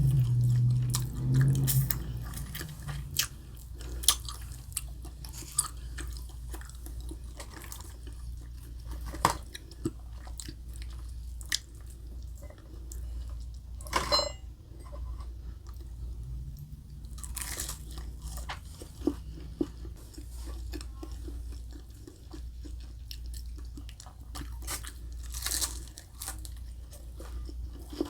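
Close-miked chewing with irregular crisp crunches, as the fried panko crust of chicken katsu is bitten and chewed, along with wet mouth sounds.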